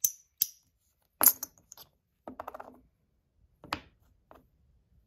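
Metal fidget parts of a Comma 2.0 clicking and clinking as they are handled and taken apart: a few sharp clicks, a louder click with a short ring about a second in, a quick run of small clicks a little later, and one more click near the end.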